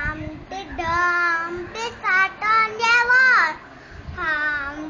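A young boy singing unaccompanied in a high child's voice, holding long notes that slide up and down, in short phrases with brief breaths between them.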